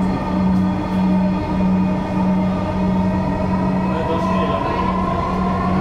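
Interior running noise of a Dhaka Metro Rail (MRT Line 6) electric train under way on the elevated line. A steady low hum swells and dips about every half second, and a higher whine rises slightly in pitch over the second half.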